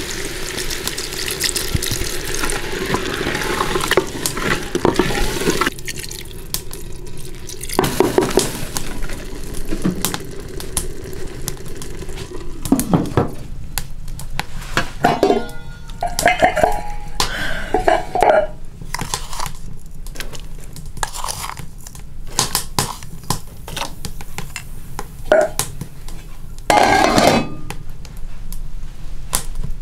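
Water poured from a plastic bottle into a stone cooking pot for about the first six seconds. After that come scattered knocks and clinks as a carved stone lid and an aluminium pot lid are handled, with a louder clatter near the end.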